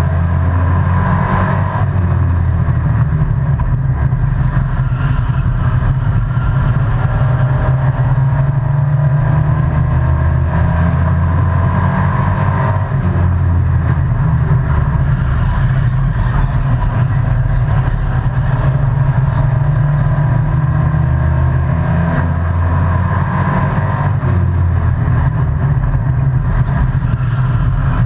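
Race truck's engine at racing speed, heard from inside the cab, running loud and continuous with the revs rising and falling in a repeating pattern about every eleven seconds, lap after lap.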